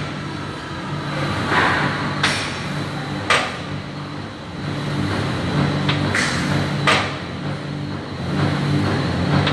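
Gym weights clanking, several sharp metal strikes, over steady background music with a pulsing bass.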